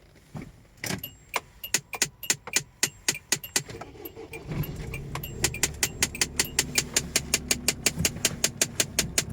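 Rapid, regular clicking from behind the dashboard of a SsangYong Kyron. It speeds up to about four clicks a second as a low, steady blower hum comes in about halfway through. The clicking comes from the heater's flap latches catching, a fault that switching the heater setting cured.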